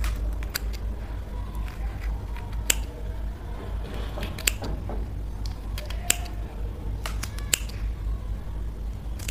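Bhut jolokia (ghost pepper) being cut up: scattered short, sharp snips and clicks, irregularly spaced, over a steady low room hum.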